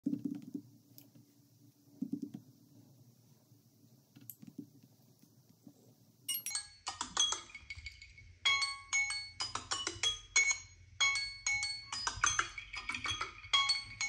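A Samsung phone's timer-expired alert: a repeating melody of short chime notes that starts about six seconds in. Near the end a second phone's timer goes off too and the chiming grows denser. Before it, only faint taps of fingers on the phone screens.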